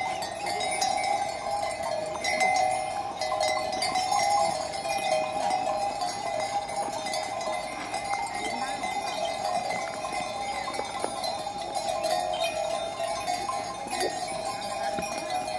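A bell on a grazing sheep's neck, ringing and clanking without a break as the sheep moves its head to feed.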